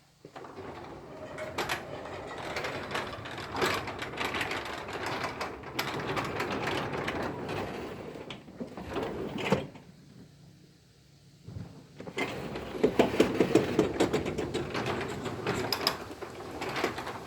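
Garage door run by a LiftMaster opener, running with a steady mechanical rattle and a few sharp knocks. It stops about ten seconds in, then starts again after a short pause. The knocks are of the kind the owner traces to the door's third section hitting the torsion spring's centre bracket.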